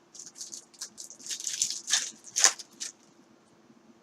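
Trading card packs and cards being handled: crisp rustling and crinkling in short bursts for about three seconds, with a sharper snap about two and a half seconds in.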